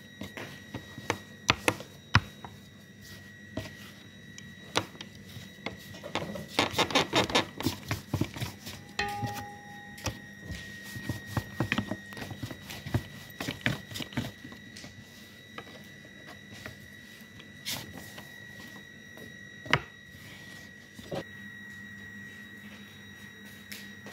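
Long thin wooden rolling pin rolling pastry dough out thin on a wooden board, with scattered knocks and clicks of the pin against the board and a quick run of clicks about six seconds in.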